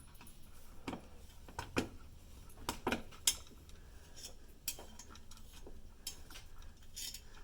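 Irregular small metallic clicks and clinks of a screwdriver turning the spring-loaded mounting screws of a CPU heatsink fan, tightened a little at a time to spread the thermal paste evenly.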